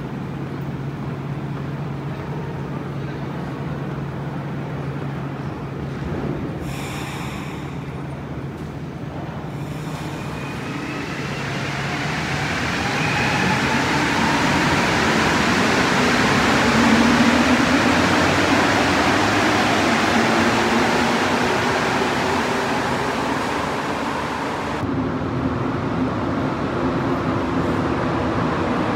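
Rubber-tyred Montreal metro train pulling out of the station: a motor whine rises in pitch as it accelerates, and the running noise builds to its loudest just past the middle, then eases off.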